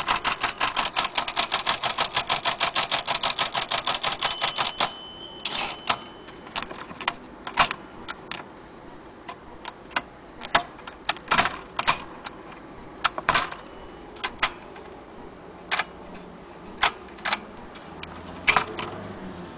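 Vintage Olympia typewriter being typed on: a fast, even run of keystrokes, about eight a second, for roughly the first five seconds, then single keystrokes struck irregularly with pauses between them.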